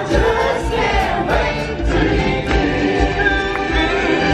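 Live stage-show music: a choir of voices singing together over a steady pounding drum beat, heard from the audience in a theatre.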